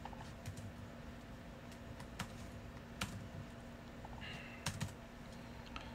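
Computer keyboard keystrokes: a few scattered, separate key taps while code is being edited, over a faint steady low hum.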